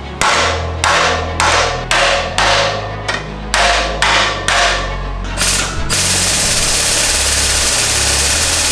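A hammer striking a steel block held against a clamped metal plate, bending it over the edge of a steel welding table: about ten sharp blows at roughly two a second, each with a short metallic ring. Then a steady hiss for about four seconds, with background music and its low bass line underneath throughout.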